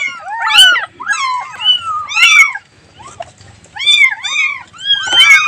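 Cats meowing over and over in short calls that rise and fall, some of them overlapping, with a brief pause about three seconds in.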